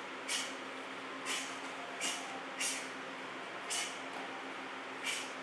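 Karate strike set being performed: six short, sharp hisses at uneven intervals, one with each strike, over a steady low room hum.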